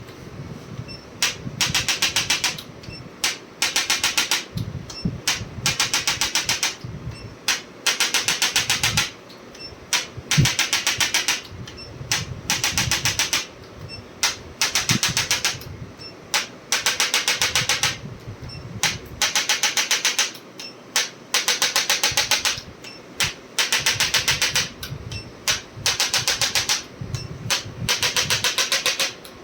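Rapid mechanical tapping in repeated bursts, each lasting up to about a second, one after another with short gaps, like a handheld percussive adjusting or massage device being applied to the body.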